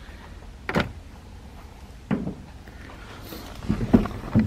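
A few scattered clicks and knocks of the plastic steering-column trim pieces being handled, with several close together near the end.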